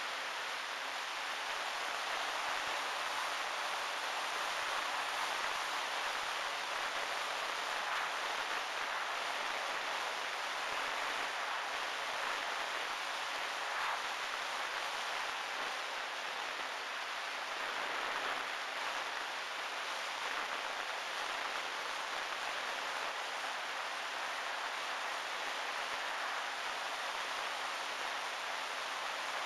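Steady rush of wind and propeller noise heard from a camera mounted on a flying RC plane, with a faint steady hum from the motor underneath.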